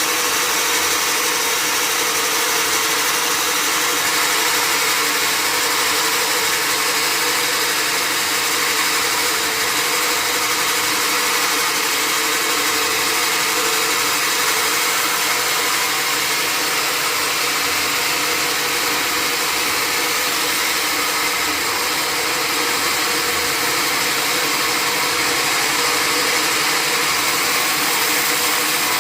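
Sawmill machinery running: a loud, steady mechanical noise with an even hum and no single strokes or knocks standing out.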